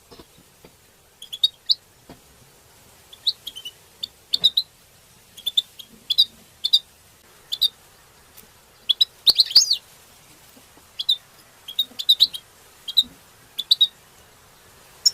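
European goldfinches giving short, sharp chirping calls in quick clusters of two to four notes, with a denser flurry of calls about nine seconds in.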